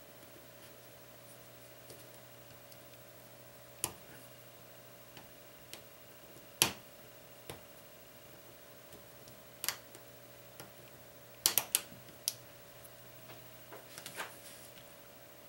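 Scattered light clicks and taps of a plastic pry tool and fingertips on a Nexus 4 phone's opened back as the battery connector is pried up, with a quick run of several clicks about three quarters through. A faint steady hum runs underneath.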